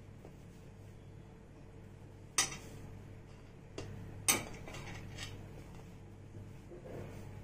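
Two sharp clinks of a utensil against a dish, about two seconds apart, with a few fainter taps between and after, over a low steady hum.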